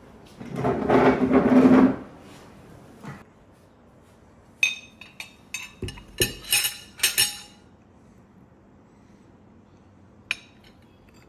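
Metal spoon and fork clinking against ceramic plates as they are set down on a table: a quick run of ringing clinks over about three seconds, then one more near the end. A louder scrape lasting over a second comes at the start.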